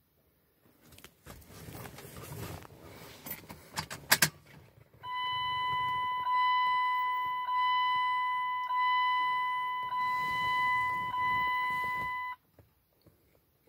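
Keys jangling and clicking into the ignition of a Dodge Ram, then the dashboard warning chime sounding a steady high tone that pulses about once a second for around seven seconds with the key switched on, before the Cummins diesel is cranked. It stops suddenly near the end, and the engine is not yet heard.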